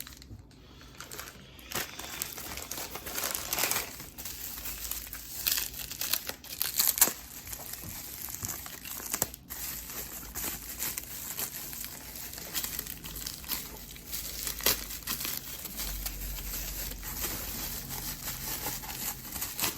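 Plastic packaging crinkling and rustling continuously, with some tearing, as the small parts of an engine kit are unwrapped and handled.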